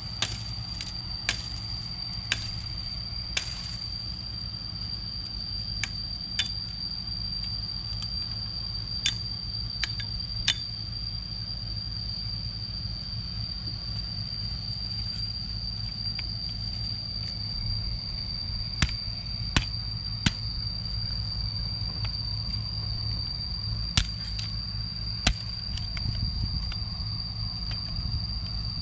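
Irregular sharp knocks and chops of a small metal spade striking into dry, grassy ground, a few at a time with pauses between, over a steady high-pitched whine and a low rumble.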